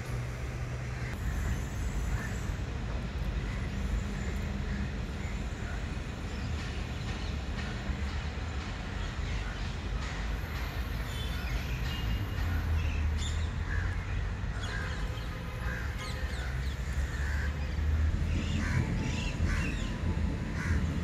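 Outdoor ambience: a steady low rumble with birds calling over it, among them crows cawing, more often in the second half and most strongly near the end.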